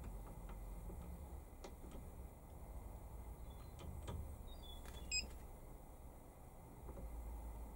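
A single short electronic beep from the Warco digital readout's keypad about five seconds in, as the X-axis reading is zeroed, over a low steady rumble and a few faint clicks.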